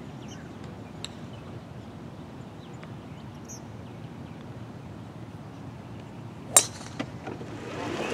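A single sharp crack of a driver's clubhead striking a golf ball off the tee, about two-thirds of the way in, ringing briefly over a steady outdoor background.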